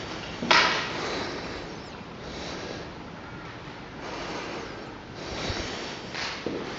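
Footsteps shuffling and crunching over rubble and broken debris, with a sharp crack about half a second in.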